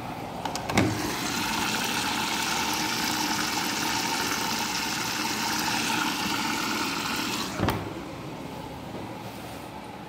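Samsung front-loading washing machine filling with water, the supply rushing in through the inlet valve and detergent drawer as an even hiss. It starts with a click about a second in and cuts off with another click just before the eight-second mark.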